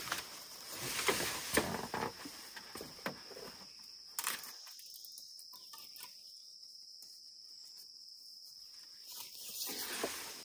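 Steady high insect chirring over the first few seconds of rustling with scattered sharp knocks. Then only the insects are left, with a short rustle again near the end.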